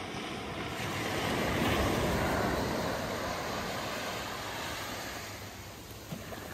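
Small ocean waves washing up a sandy beach: the rush of a wave swells over the first couple of seconds and then slowly fades.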